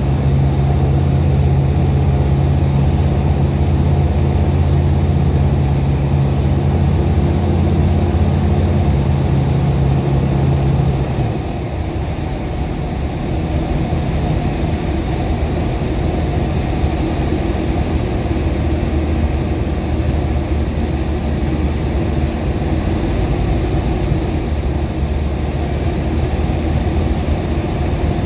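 Single-engine light aircraft's Rotax four-cylinder engine and propeller droning steadily, heard inside the cabin. About eleven seconds in the strong low hum falls away and the engine sound becomes slightly quieter.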